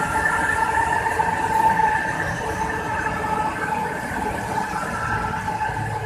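MRT-3 CKD Tatra RT8D5M light rail cars running past close by on elevated track: a steady rumble of wheels on rail with a high steady whine over it, easing off slightly toward the end.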